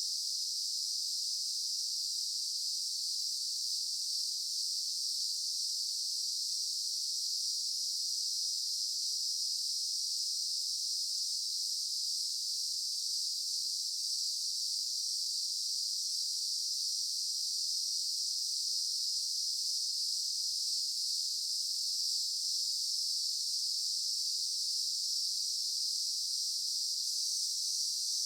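Daytime insect chorus: many insects sounding together as one steady, high-pitched drone with no pauses.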